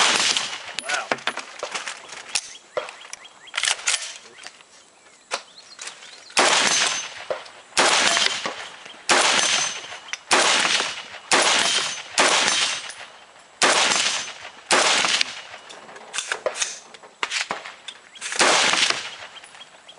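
FN SCAR 17S Heavy rifle in 7.62mm NATO fired semi-automatic: more than a dozen loud shots, each with a short ringing tail. They are sparse at first, then come about one a second from roughly six seconds in.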